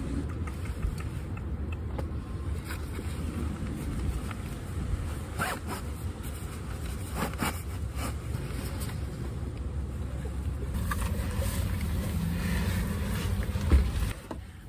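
Straps and buckles of a Kelty child-carrier backpack rustling and clicking as it is unbuckled and handled, over a steady low rumble. A thump near the end as the carrier is set into a car's cargo area.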